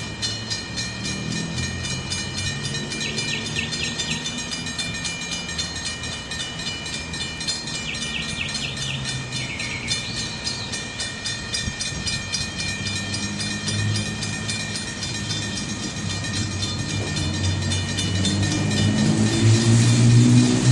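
ALCo FPD-9 diesel-electric locomotive approaching with its train, engine running and wheels clicking over the rails, with thin steady high tones above. The engine sound grows louder near the end as the locomotive draws close.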